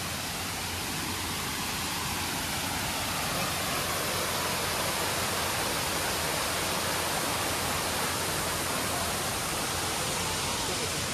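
Steady rush of falling or running water, growing a little louder over the first few seconds and then holding even.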